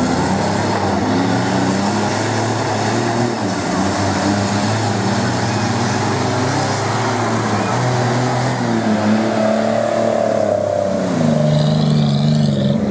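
Off-road 4x4's engine running under load, its pitch rising and falling as the throttle opens and closes, with a higher whine sweeping up and down near the end.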